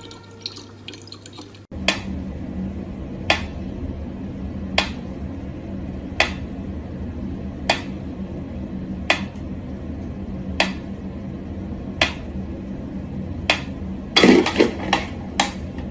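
Tap water running into a plastic bottle for a moment, then a pendulum metronome ticking slowly and evenly, about one tick every second and a half. Near the end comes a quick cluster of knocks and rattles as a cat paws at the metronome.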